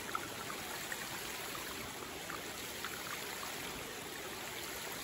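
Steady wash of flowing, trickling water, with a few faint small ticks scattered through it.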